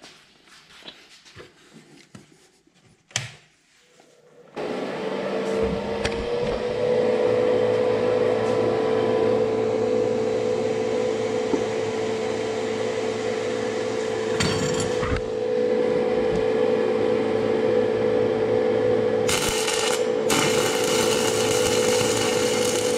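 Inverter stick welder running, its cooling fan humming steadily from about four and a half seconds in and rising slightly in pitch as it spins up. Near the end the crackling hiss of a stick-welding arc on a 1/8-inch 7018 rod starts, breaks off for a moment, then carries on.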